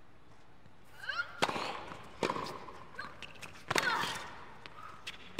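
Tennis ball struck by rackets in a hard-court rally: a sharp crack about a second and a half in as the serve is hit, then two more hits less than a second and about a second and a half apart. Short squeaks of shoes on the court come between the hits.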